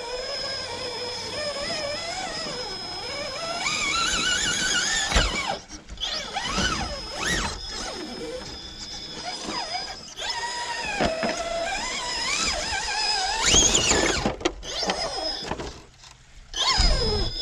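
Electric drivetrain of an RC rock crawler, a 3BRC Yellowjacket 2000kv brushless motor through an Element stealth transmission, whining as it crawls up rocks. The pitch rises and falls with the throttle, and the motor cuts out abruptly a few times.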